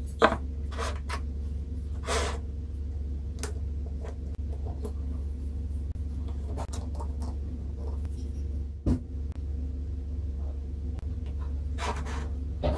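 Small handling noises: clicks, taps and brief rubbing as a small circuit board, spring clips and a wire are handled on a wooden block, with one louder thump about nine seconds in. A steady low hum runs underneath.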